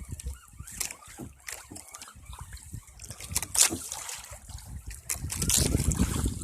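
Wind buffeting the microphone with low rumbling gusts, mixed with water sloshing and splashing; the rumble grows stronger in the second half.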